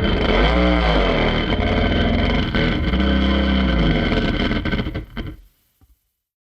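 Designed monster howl sound effect: a long, rough, low creature howl with a heavy rumble underneath, its pitch arching up and down, lasting about five seconds and stopping short, followed by silence.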